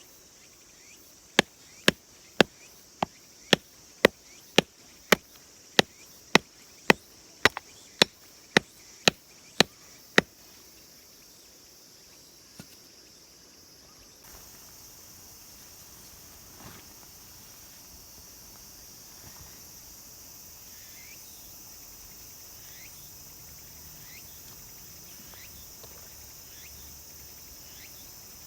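A series of about sixteen sharp knocks, evenly spaced a little over half a second apart, lasting about nine seconds, over a steady high insect drone. Faint short chirps follow later.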